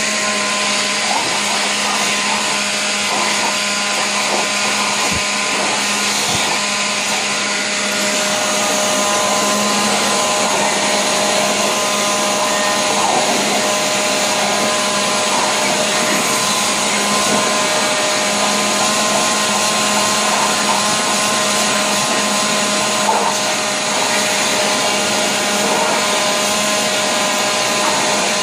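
Leaf blower running steadily, a constant whine over rushing air, its stream blowing straight into a dog's mouth as she bites at the nozzle.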